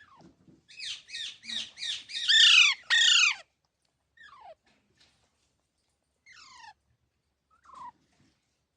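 Parrot squawking: a quick run of about six calls, each falling in pitch, the last two loudest, followed by three fainter single falling calls spaced a second or two apart.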